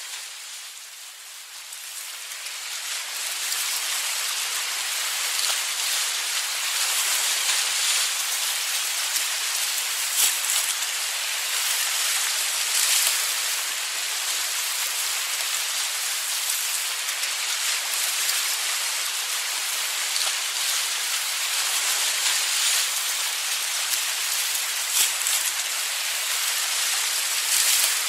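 Ocean waves washing steadily onto a beach, a continuous hissing wash of surf with little deep rumble. It swells up over the first couple of seconds, and there are a few brief louder splashes.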